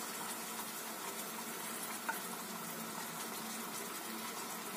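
Faint steady sizzle of tomato sauce cooking in a hot pan over a gas burner, with one small tick about two seconds in.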